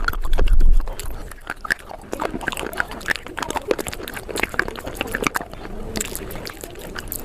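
ASMR crunching sped up four times: a fast, dense stream of sharp crackles and crunches, with a loud low thump in the first second.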